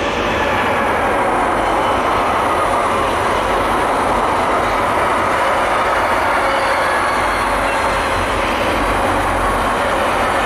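Intermodal freight train passing close by at speed: the electric locomotive goes past as the sound reaches full loudness in the first half-second, then the pocket and container wagons keep up a steady rumble of wheels on rail.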